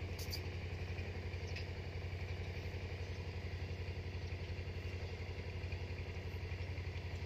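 A small engine running steadily at idle, with a fast, even pulse.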